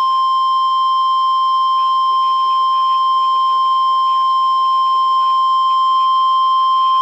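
NOAA Weather Radio 1050 Hz warning alarm tone: a single loud, steady, unbroken tone. It signals that a warning message is about to be broadcast.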